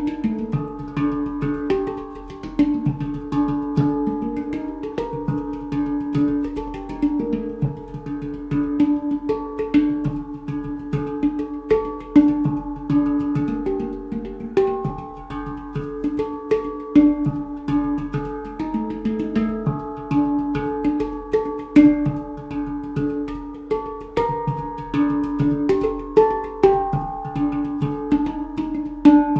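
Golden Sound handpan in a Pygmy scale played with the hands: a steady, continuous run of struck steel notes that ring on, with quick fingertip strikes between them.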